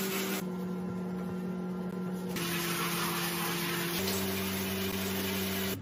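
Handheld shower running over a dog in a bathtub: a steady hiss of spraying water over a constant low hum.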